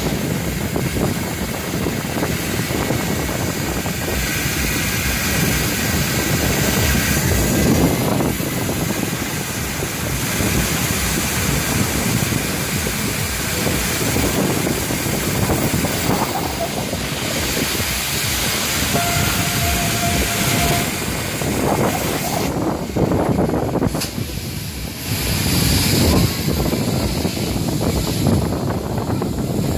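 Wind buffeting the microphone and the steady running noise of a jet carousel, heard from inside one of its circling plane gondolas.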